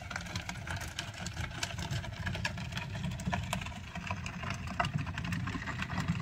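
Loaded two-wheeled plastic wheelbarrow rolling over a gravel driveway: a steady low rumble with frequent small clicks and rattles.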